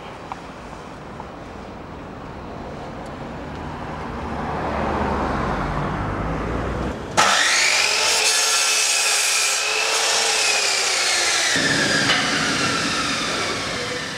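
Electric mitre saw running and cutting through a wooden strip: a loud, steady motor whine that starts abruptly about halfway through and sags in pitch toward the end. Before it, a low rumble swells up.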